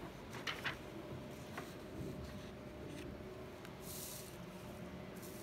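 Faint rustling and a few soft clicks of paper sheets being handled and turned over, with a brief louder rustle about four seconds in.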